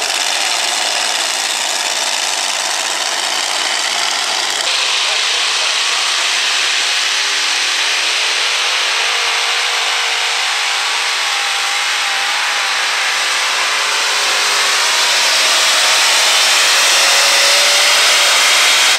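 Multi-engine modified pulling tractor running hard under load: a loud, steady engine roar that grows a little louder near the end.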